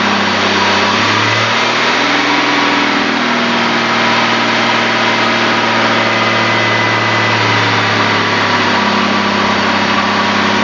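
4.1-litre Chevrolet straight-six engine running steadily on wood gas, its note wavering slightly as the gas/air mixture valve is adjusted.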